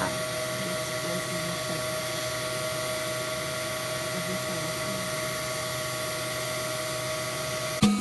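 Steady rushing hiss of air flow with a steady whining tone, as from the gas furnace's air-and-gas burner supply. It cuts off suddenly near the end.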